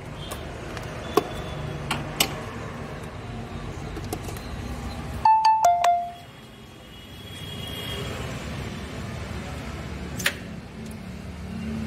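Engine oil being opened and poured through a funnel into a car engine's rocker cover, with a few sharp clicks over a steady low rumble. About five seconds in comes a short electronic chime of two notes stepping down in pitch, the loudest sound.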